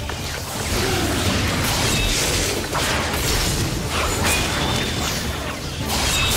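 Layered action sound effects of electric crackling, with repeated sharp hits and booms over a steady low rumble.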